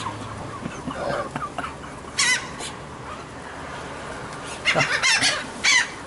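Laughing gulls calling: one high, wavering call about two seconds in, then several more in quick succession near the end.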